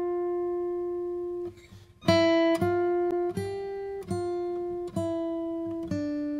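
Background music: a slow melody of single notes, each ringing on and fading before the next, with a brief pause about a second and a half in.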